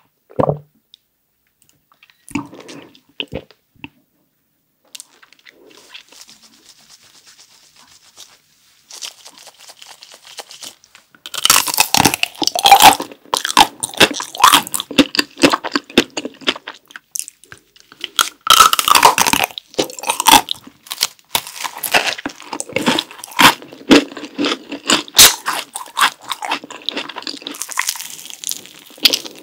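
Close-miked eating: a few soft swallows at first, then from about eleven seconds in loud, crisp crunching and chewing as the hard chocolate shell of a chocolate-coated ice cream bar cracks under the bites. Near the end the eater bites into a macaron ice cream.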